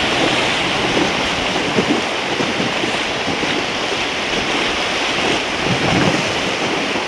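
River water rushing around a whitewater raft, a steady rush with small splashes scattered through it, and wind buffeting the microphone.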